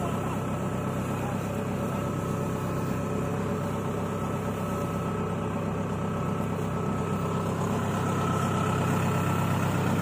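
Compact rice combine harvester's engine running steadily with an even low throb, getting slightly louder near the end.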